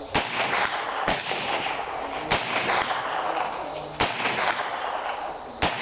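Five shots from a 9mm pistol-caliber carbine fed from Glock magazines, fired singly at an uneven pace of roughly one a second, each crack followed by a short echo.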